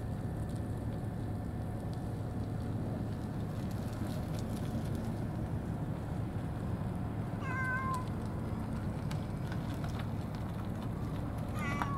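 A cat meowing: one short call about two-thirds of the way through and another starting near the end, over a steady low background rumble.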